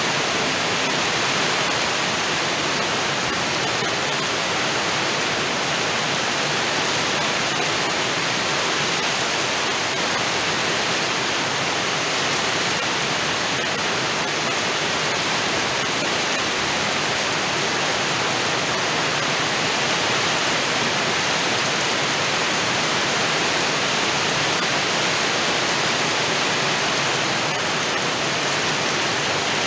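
Heavy rain pouring down in a steady, dense hiss that neither builds nor lets up.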